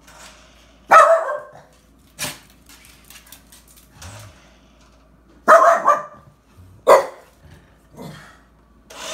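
Small dog barking at a remote-control toy car: a few sharp barks, the loudest about a second in and twice more between five and seven seconds in, with softer ones between.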